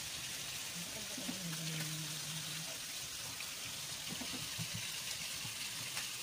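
Longganisa sausages sizzling steadily in hot oil in a frying pan.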